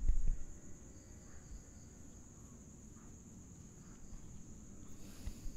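Crickets trilling steadily in one continuous high tone, with a brief low thump right at the start.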